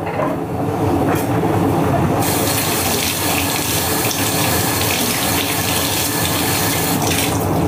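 Kitchen tap running steadily into a stainless-steel sink, the splash getting hissier about two seconds in.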